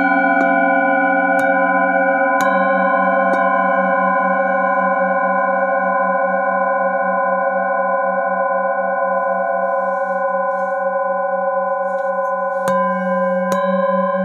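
Several metal singing bowls struck with a wooden mallet: about four strikes in the first few seconds, then long overlapping ringing tones with a steady pulsing beat in the low tone, and more strikes near the end.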